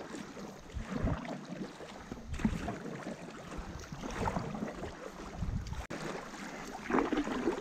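Stand-up paddles dipping and pulling through river water with a splash about every second and a half, as two paddlers drive a tandem inflatable paddleboard along. Wind rumbles on the microphone throughout.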